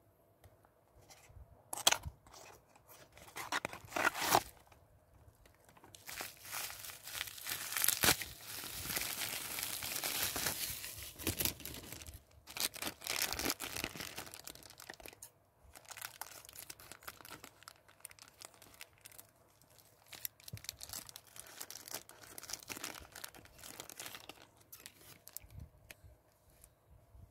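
Cardboard blind box being opened and a clear plastic packaging bag torn and crinkled by hand. A few sharp clicks come in the first few seconds, then a long stretch of dense crinkling and tearing, which is the loudest part, before lighter, intermittent rustling.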